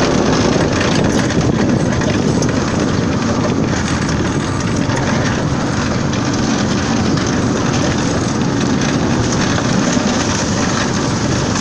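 Golf cart driving over a rough woodland trail: steady running noise with many small rattles and knocks.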